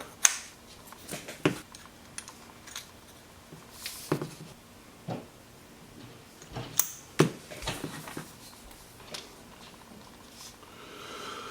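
Scattered light clicks and taps as the parts of a screwdriver, a purpleheart handle and its hollow stem, are handled and pushed together in a dry fit.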